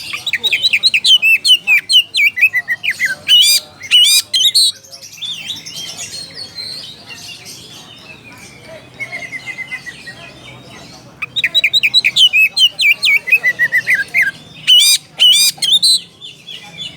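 Oriental magpie-robin (kacer) singing its challenge call to rivals: two loud runs of rapid, sweeping whistled notes, each about five seconds long, with softer twittering between them.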